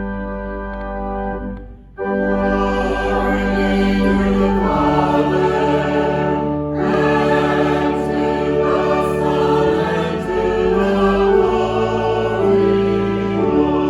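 Church music: a choir singing slow, held chords with organ. A first held chord breaks off about two seconds in, and a fuller sound comes straight in after it.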